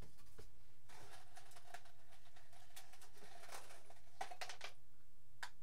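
Faint rustling and scraping with a few light knocks, as of things being handled, over a steady low electrical hum.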